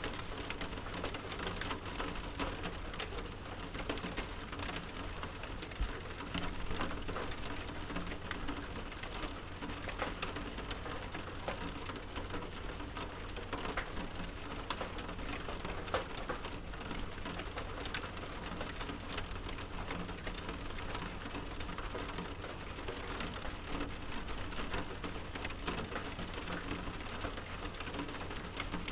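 Rain falling on a window: a steady patter of many small drops ticking on the glass, with a low steady hum underneath.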